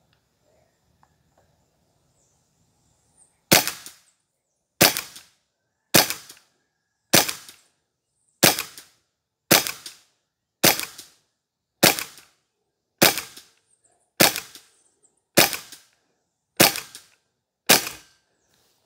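Karma SLS .22 PCP air rifle firing in semi-auto mode: thirteen sharp shots in a steady string, a little over a second apart, starting a few seconds in, each with a short decaying tail.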